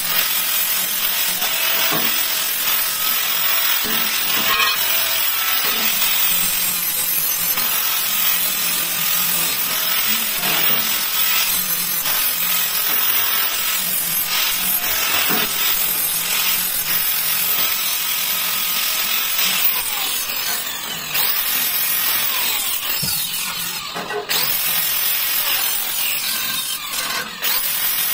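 Angle grinder with a thin cutting disc slicing through 202 stainless steel sheet, a steady, high-pitched grinding as the disc cuts out a square panel. The sound dips briefly a few times near the end as the disc eases off the metal.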